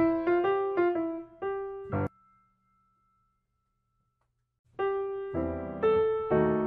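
Solo piano background music. It cuts off about two seconds in, there are about two and a half seconds of silence, and it starts again near the end.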